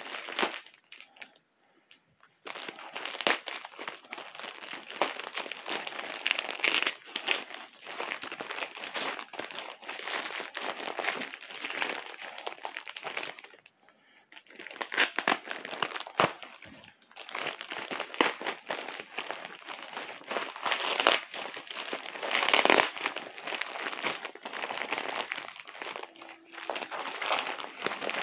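Package wrapping being crumpled, crinkled and torn open by hand: a dense run of crackling, with brief pauses near the start and about halfway through.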